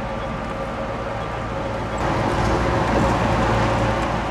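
A motor vehicle passing, its noise swelling about two seconds in over a steady low hum.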